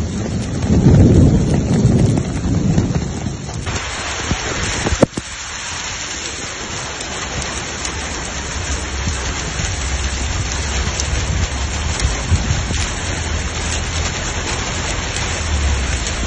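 Heavy rain pouring steadily with a dense, even hiss. A deep rumble swells and fades over the first few seconds, and there is a single sharp click about five seconds in.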